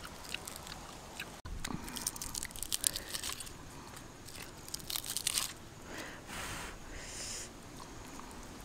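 Charred, scaly skin of a whole grilled fish crackling and tearing as fingers pull the flesh apart, in clusters of quick crisp crackles.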